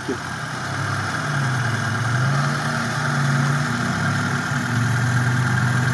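Off-road vehicle engine idling, its pitch rising a little for a couple of seconds about a second in, then settling back to a steady idle.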